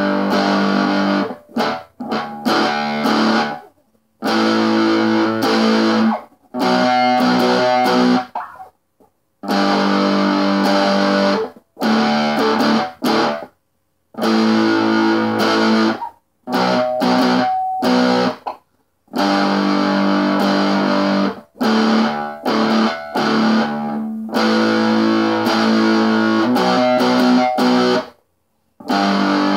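Squier Stratocaster electric guitar in drop D tuning, playing the chorus chords slowly. Each chord rings for a second or two and is cut off sharply, leaving short silences between chords in a repeating pattern.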